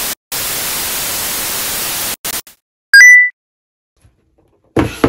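Loud static hiss that cuts off sharply after about two seconds, followed about three seconds in by a short, loud electronic beep that steps up in pitch. Near the end a sudden hit rings out and fades.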